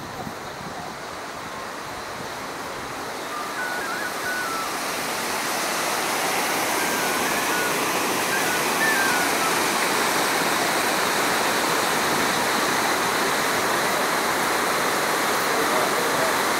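Water rushing over a low river weir, a steady broad hiss that grows louder over the first several seconds and then holds.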